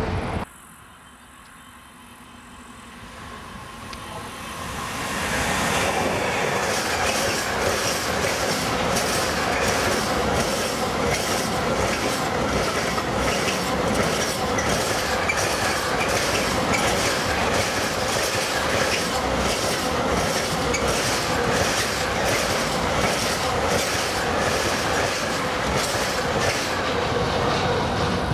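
A freight train draws near and passes close by: the sound builds over the first five seconds, then a long rake of covered hopper wagons rolls past. The wheels click regularly over rail joints, about one to two clicks a second, under a faint steady whine.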